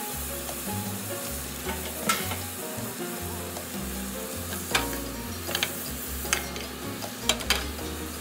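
Ribeye steak sizzling in hot butter in a grill pan: a steady frying hiss, with tongs clicking against the pan and steak several times.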